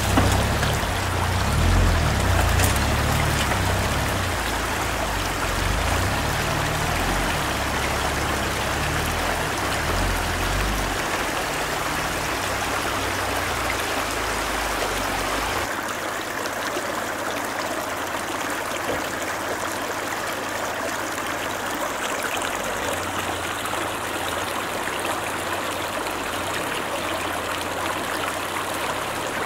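Meltwater stream rushing steadily over a rutted forest track. A low rumble lies underneath for roughly the first half and drops away about halfway through.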